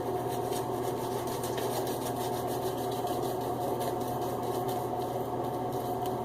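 Steady mechanical hum from a running machine, with a few faint light ticks over it.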